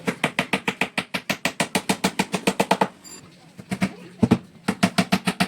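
A fast, even run of drum hits, about nine a second, like a drum roll. It breaks off for most of a second a little under three seconds in, then starts again.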